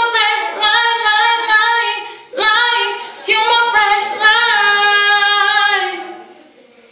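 A woman and a young girl singing together without accompaniment, in long held high notes; the singing fades out about six seconds in.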